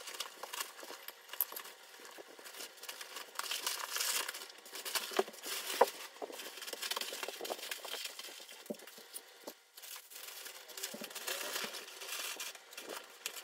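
Fast-forwarded packing noise: a continuous jumble of crinkling and rustling as stuff sacks and clothing are pushed into a Hyperlite Mountain Gear backpack, sped up so it runs dense and high-pitched with many small clicks. It is loudest around four and six seconds in.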